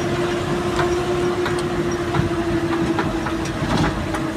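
Cab noise of a truck running downhill at speed: a steady whine over the rumble of the road, with scattered clicks and rattles from the cab.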